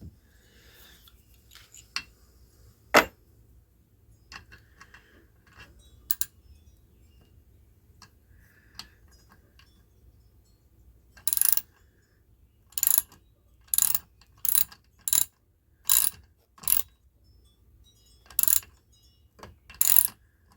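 Ratchet wrench clicking in short strokes, about one a second from around halfway, tightening a puller to work the governor off a Tecumseh small engine. Before that come a few small metal clinks and one sharp knock about three seconds in.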